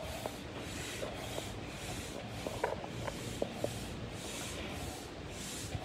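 Hand-operated stand-up air pump being worked up and down to inflate a portable pool, each stroke pushing out a hiss of air, about one every three-quarters of a second, with a few light clicks from the pump.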